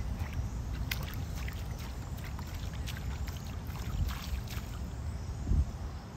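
Puddle water splashing and sloshing as a toddler slaps it with his hands and moves his rubber rain boots in it: scattered small splashes, with a louder splash near the end, over a steady low rumble.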